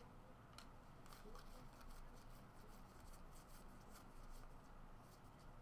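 Faint rustling and light flicking of Panini Contenders football cards slid one by one off a stack by hand.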